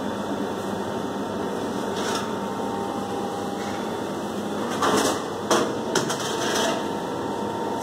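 Steady background hum of a fast-food kitchen, broken by a few short knocks and clatters; the loudest come about five seconds in.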